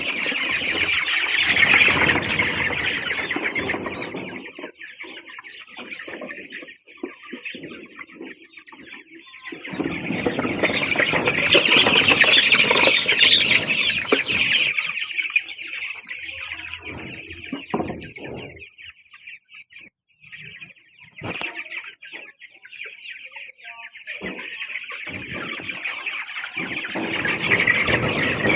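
A flock of month-old young chickens peeping and clucking together. The din swells in louder spells at the start, in the middle and toward the end, and thins out to a few calls in between.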